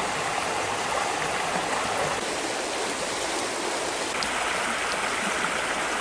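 Shallow rocky creek running over stones: a steady, even rush of flowing water.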